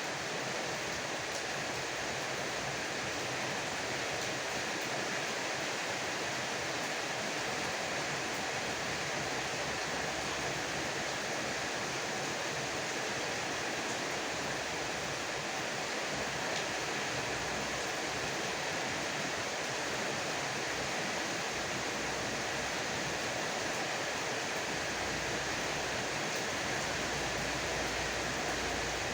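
Heavy rain falling steadily, a dense even hiss of drops. A low rumble rises underneath near the end.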